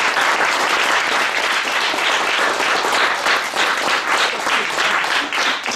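Audience applauding: a dense clatter of hand claps that grows sparser and more separate toward the end.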